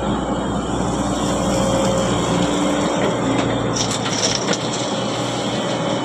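Excavator's diesel engine running steadily while it works, with a brief high-pitched scrape or squeal about four seconds in.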